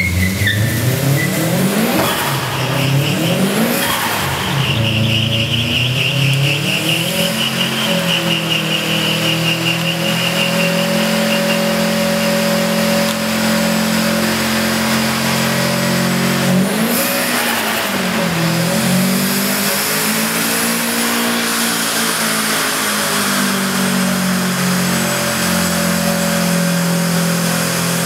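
Car doing a stationary burnout in an underground concrete car park: the engine is held at high revs, dipping and rising again, while the spinning tyres smoke. A tyre squeal runs over the engine for several seconds early on.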